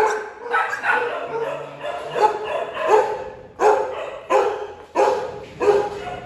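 Bắc Hà dog barking repeatedly, about a bark every two-thirds of a second.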